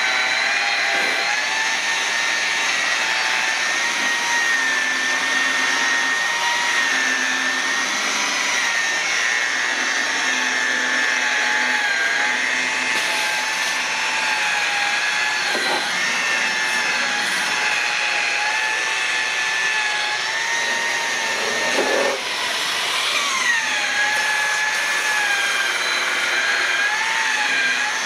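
Electric rotary polisher with a foam buffing pad running at about 1800 RPM, buffing rubbing compound into a plastic headlight lens. A steady motor whine that wavers slightly in pitch and briefly shifts about three-quarters of the way through.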